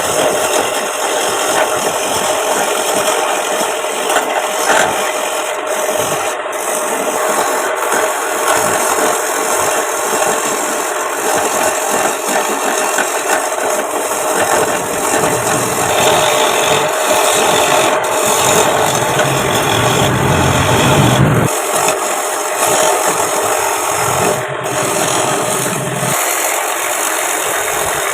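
A turning tool scraping a spinning wooden plate blank on a homemade wood lathe: a steady, loud rasping with the lathe's motor running underneath. The cut grows heavier for a few seconds past the middle.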